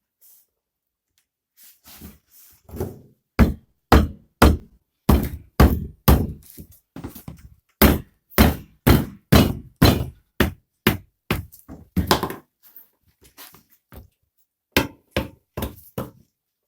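Hammer knocking, a steady run of about two blows a second, as a tyre is worked onto a motorcycle wheel rim; after a short pause near the end come four more blows.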